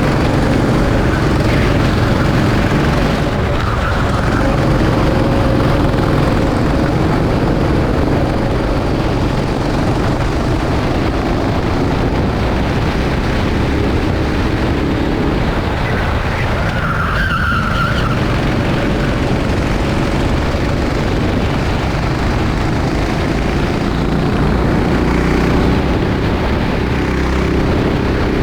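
Rental racing kart engines running at race pace, their pitch shifting with the throttle, with a short tyre squeal about seventeen seconds in.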